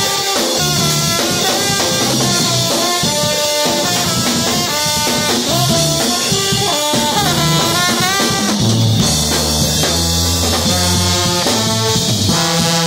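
Brass band playing live: trombone and trumpets over a drum kit. Stronger low bass notes come in about eight and a half seconds in.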